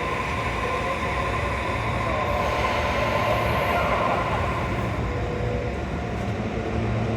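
JR East HB-E300 series hybrid diesel railcar moving off slowly, its engine running with a low hum and steady whining tones. A faint hiss rises between about two and four seconds in.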